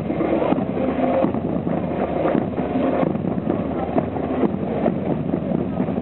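Street crowd noise: scattered spectator voices over wind rumbling on the microphone.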